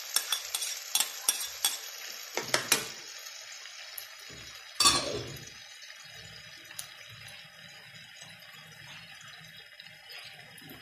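Metal spoon clinking and tapping against a plate and pan as salt is knocked off into the mung beans. One loud clatter comes about five seconds in, then only a faint steady sizzle from the pan.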